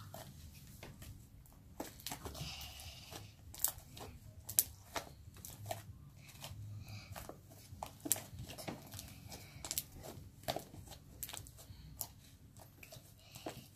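Hands kneading and squashing soft, gluey homemade slime: an irregular run of small sticky pops, clicks and crackles as the slime is pressed down and pulled apart, a couple of them louder about three and a half and four and a half seconds in.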